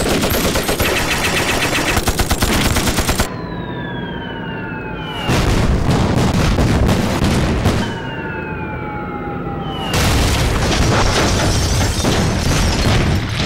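Film battle sound effects: a rapid volley of rifle and machine-gun fire, then twice a descending whistle followed by explosions, as aircraft bomb an airfield.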